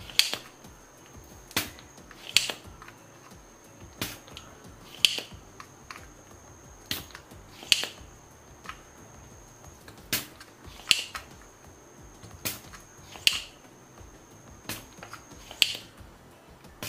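Spring-loaded desoldering pump (solder sucker) being cocked and fired again and again to suck solder from the heat-sink transistor joints on a PC power-supply board: sharp snapping clicks, mostly in pairs about a second apart, every two to three seconds.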